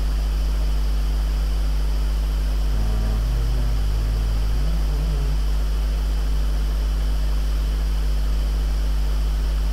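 Steady low electrical hum with a constant hiss, the recording's background noise, and a few faint, brief low tones about three to five seconds in.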